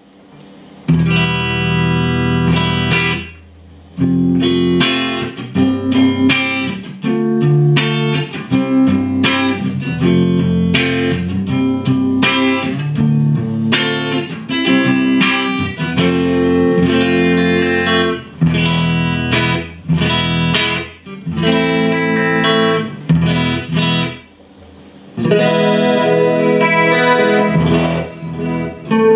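Photogenic Les Paul-style bolt-on-neck electric guitar with humbucking pickups being played, notes and chords starting about a second in, with two short pauses, near 3 and 24 seconds in.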